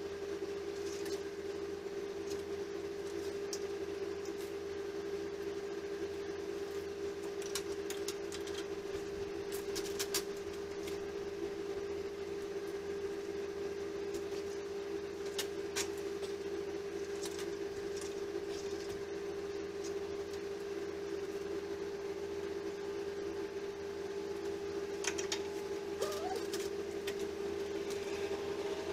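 A steady mechanical hum with a few light, sharp metal clicks from wire being handled and bent at a bench vise.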